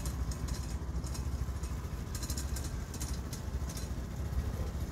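Honda Grom's small single-cylinder engine running at low speed as it rides past, a steady low rumble.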